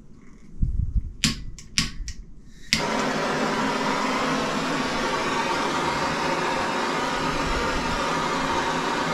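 A few sharp clicks, then a handheld gas torch lights with a sudden start and keeps running with a steady hiss of the flame.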